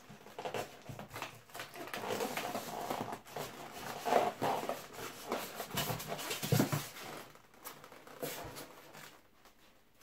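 Hands unpacking a 3D printer kit: plastic-bagged parts rustling and clattering against the foam packing, with irregular scrapes and knocks, loudest about four and six and a half seconds in.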